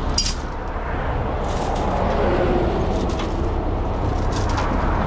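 Steady low engine rumble, with a few light metallic clinks spread through it.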